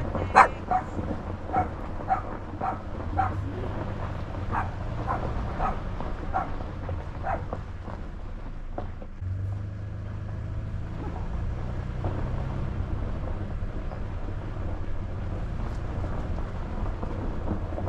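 A dog barking about a dozen times over the first seven seconds, the first barks loudest, then stopping. A vehicle's low steady hum runs underneath throughout.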